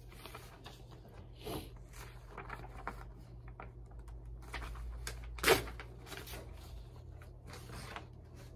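Sheets of paper being handled and shuffled on a desk: soft rustles and a few light knocks, the loudest about five and a half seconds in, over a low steady hum.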